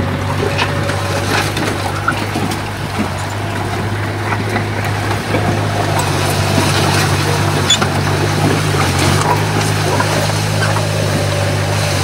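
Heavy-equipment diesel engine running steadily with a constant low drone, with scattered small crackles and clicks over it.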